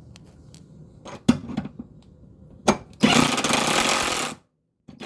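A handheld power tool runs in one burst of about a second and a half, loosening a bolt, after a couple of sharp clicks of the tool and socket being fitted on.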